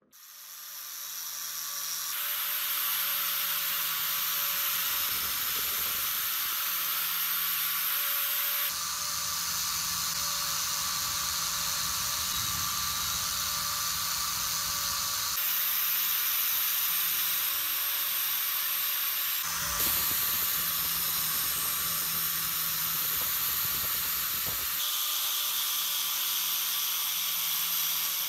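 Spinning wire cup brush on a power tool scouring rust off the cast-iron body of an antique meat grinder. A steady scratchy hiss runs over the motor's hum; it rises out of near silence over the first couple of seconds and changes tone abruptly a few times.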